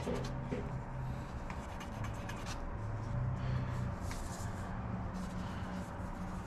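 Sharpie permanent marker being stroked on the aluminium wing spar, marking bad rivets: short scratchy strokes over a steady low hum.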